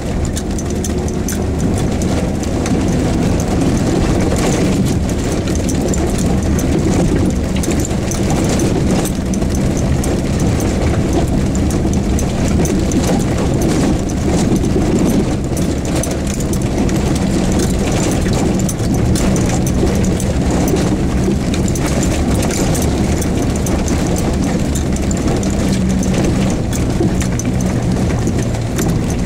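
Lifted Jeep Wrangler YJ's engine running steadily at low speed, heard from inside the cab, with tyres crunching over loose stones and the vehicle rattling and knocking on a rough off-road track.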